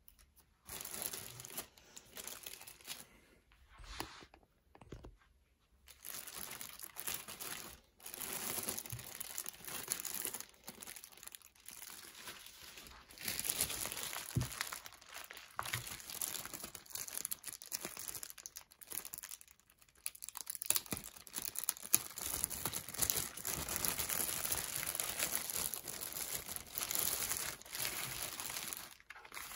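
Packaging being unwrapped: plastic and paper crinkling and rustling in irregular handfuls, with some tearing, more continuous in the second half.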